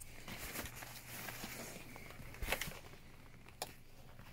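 Faint rustling of fabric and strap being handled, with a couple of light clicks or knocks, as a back-seat organizer's top strap is fitted over the car seat.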